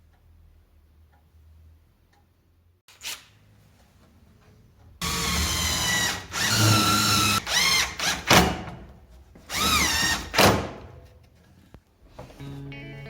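Handheld power drill running in a series of trigger pulls from about five seconds in, its motor whine rising and falling in pitch with each pull.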